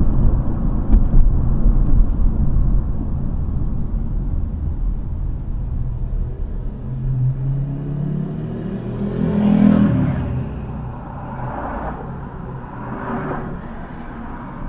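Low road and engine rumble inside a moving car as it slows from city-street speed to a stop in traffic. About seven seconds in, a rising engine note swells to its loudest near ten seconds, then fades.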